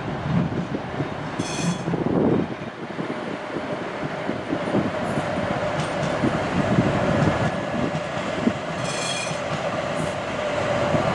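Sheffield Supertram, a Siemens-Duewag light-rail tram, running past on its track with a steady rumble and a hum that strengthens in the second half. Two short high squeals, about a second and a half in and again near nine seconds, are typical of tram wheels on rail.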